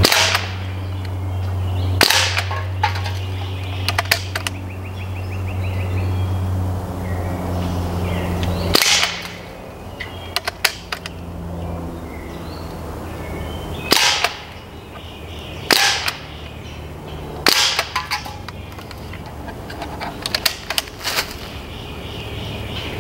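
Umarex Ruger 10/22 CO2 pellet rifle firing about six sharp pops, spaced one to five seconds apart, with fainter sharp clicks between some of them. A low steady hum under the first nine seconds stops suddenly.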